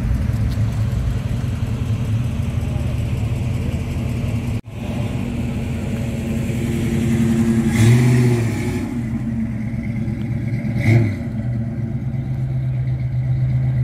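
Classic Ford Mustang engines, including a Boss 302 V8, running at low revs as the cars drive off. Two short revs a few seconds apart in the second half are the loudest sounds.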